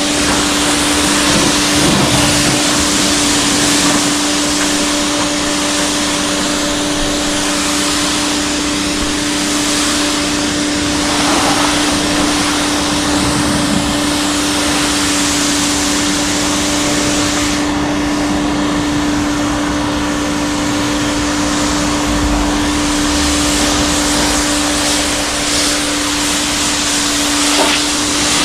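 LWQ 4200 PSI electric pressure washer running and spraying: a steady electric motor-and-pump hum under the hiss of the high-pressure water jet. The hiss eases briefly about two-thirds of the way through while the hum carries on.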